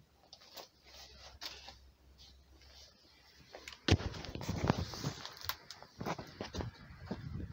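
Handling noise from a handheld phone: quiet at first, then a sharp knock about four seconds in, followed by rubbing, rustling and knocks against the microphone as the phone is swung around.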